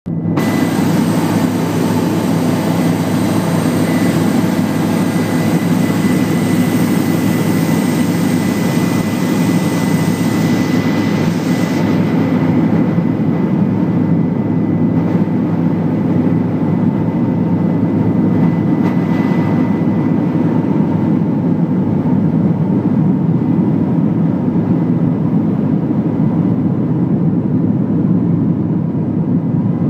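Helicopter in flight: a loud, steady drone of engine and rotor noise with a thin high whine above it.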